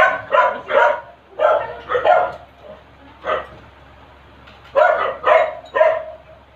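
A dog barking repeatedly in short volleys of two or three barks, with pauses between.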